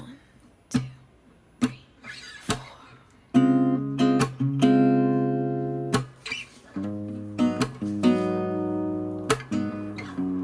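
Background music on acoustic guitar. A few sparse plucks and taps come first, then strummed chords ring out, struck again every second or two, from about three seconds in.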